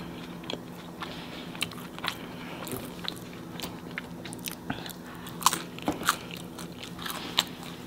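Close-up chewing of crispy homemade pizza crust: irregular crunches and bites. A faint steady hum runs underneath.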